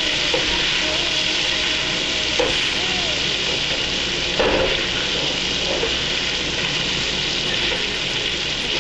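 Chicken and potatoes frying in hot oil in a pan: a steady sizzle, with a knock about four and a half seconds in.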